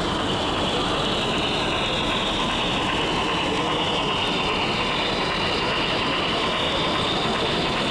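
Model steam locomotive hauling coaches along a model railway layout, giving a steady running and rolling noise.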